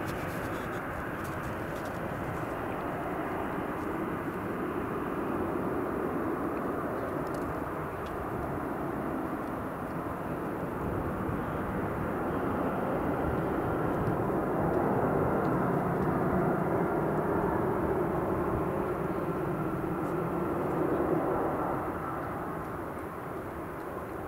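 Airbus A320-214 airliner's CFM56 jet engines running through landing, a steady rushing roar. It swells after touchdown, about halfway through, and eases off a couple of seconds before the end as the aircraft slows on the runway.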